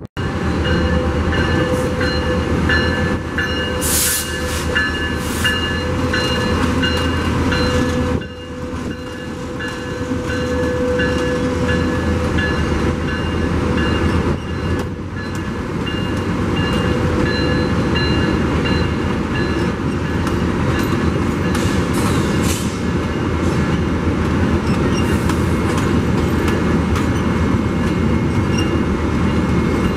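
A train running past: the steady rumble of the locomotive and railcars. Several high, steady tones ring over it through roughly the first ten seconds, with a few sharp clicks.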